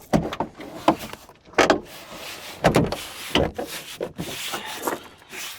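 Plastic interior door trim panel being pressed onto a pickup's third door: about five sharp knocks as its retaining clips are pushed into the door, with the panel rubbing and scraping against the door between them.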